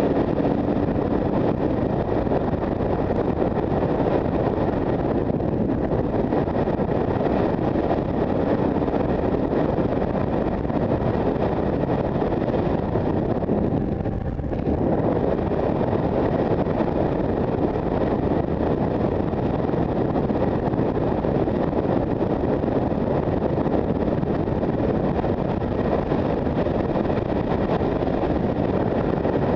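Steady wind rush on a helmet-mounted camera at highway speed, mixed with the drone of a Kawasaki KLR650's single-cylinder engine. It briefly dips about halfway through.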